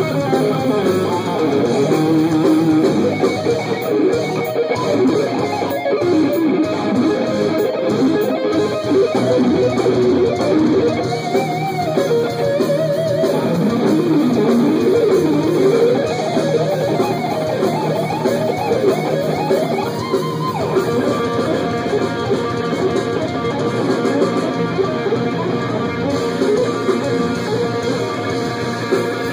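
Electric guitar played through an amplifier, continuous fast playing with quick runs sweeping up and down in pitch.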